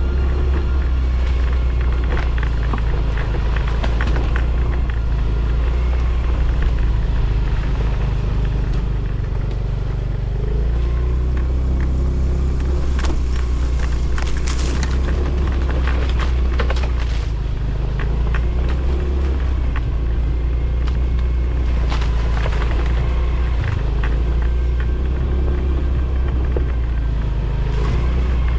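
Motorcycle running steadily under way, with a heavy low rumble of wind on the microphone and scattered rattles and clicks.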